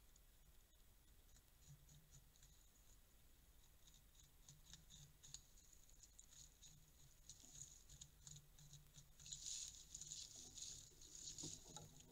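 Faint, quick crackling and clicking from Eurasian beavers at work at the base of a gnawed tree trunk, growing denser and louder about nine seconds in.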